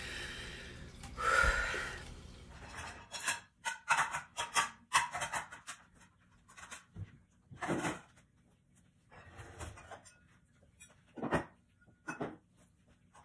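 Dishes clinking and clattering as a dishwasher is unloaded and plates are put away in a cabinet: a rustling hiss at first, then a quick run of knocks and clinks, then a few separate clunks.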